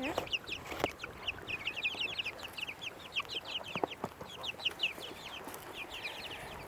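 A flock of chickens peeping: a steady stream of short, high, downward-sliding chirps, several a second and overlapping, with a few faint clicks among them.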